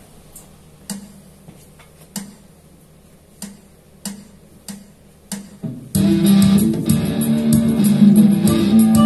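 A count-in of sharp clicks, two slow and then quicker ones, over a faint hum. About six seconds in, the song starts loudly: electric guitar over a backing track.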